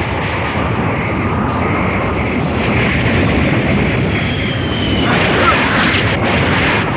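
Cartoon sound effects of a volcano erupting: a loud, continuous rumbling roar. About five seconds in, a brighter rushing noise joins it as a jet flies among the flying rocks.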